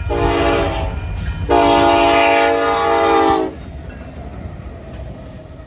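Semi truck's air horn sounding two loud blasts of several tones at once: a short blast of about a second, then a longer one of about two seconds that cuts off sharply. A low engine and road rumble continues underneath.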